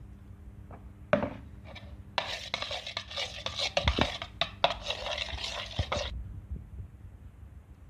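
A spoon stirring and scraping a thick mixture in a bowl while slime is being mixed. A couple of clicks come about a second in, then about four seconds of busy stirring with small knocks against the bowl.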